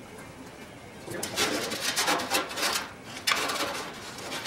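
Rustling and scraping as wire is pulled by hand through the holes in aluminium wing ribs, starting about a second in, with a sharp knock a little over three seconds in.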